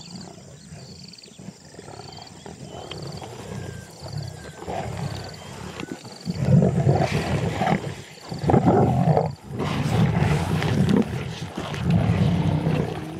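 Lions growling and snarling at a zebra foal kill as they feed and squabble over the meat. Fairly quiet for the first few seconds, then loud, rough growls break out about halfway through in several bursts.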